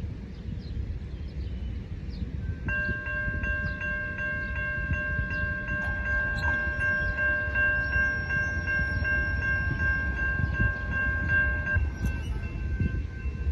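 Railroad crossing warning bell starts ringing a little under three seconds in, a rapid, evenly paced dinging that signals an approaching train. Just before the end most of the ringing stops and one fainter tone rings on, over a steady low rumble.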